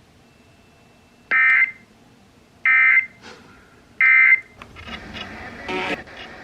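Three short bursts of the EAS digital SAME code, the end-of-message signal that closes an emergency alert broadcast. The bursts are harsh electronic screeches, each about a third of a second long and about a second and a half apart. Faint radio audio follows near the end.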